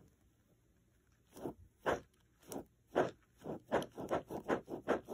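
A bead-filled squishy stress ball being squeezed over and over in the hand: a run of short squeezing sounds starting about a second and a half in, coming faster, several a second, toward the end.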